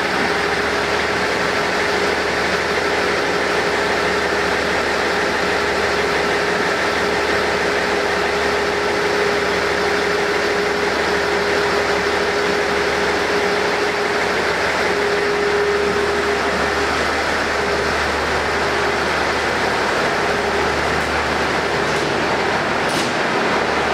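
KiHa 40 diesel railcar's engine idling while the railcar stands at the platform: a steady engine noise with a held tone that fades out after about seventeen seconds.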